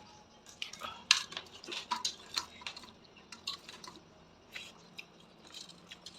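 Metal kitchen utensils clinking and scraping against dishes, a string of short, irregular clinks.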